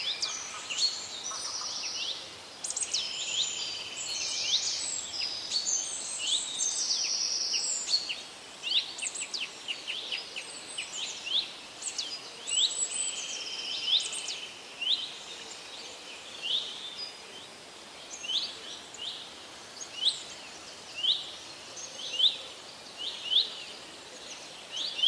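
Wild birds singing and calling: several overlapping songs and trills for the first half, then one bird repeating a short sweeping call about once a second.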